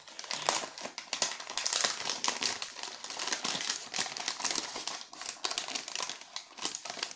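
Plastic parcel packaging crinkling and rustling as hands unwrap and pull it open, with irregular crackles and rustles of the wrapping.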